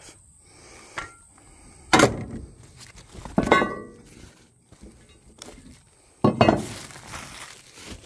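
Steel brackets and plates of a chainsaw rack being handled and set down on wooden deck boards: a few knocks, then a metallic clink that rings briefly about three and a half seconds in. Plastic wrapping rustles near the end.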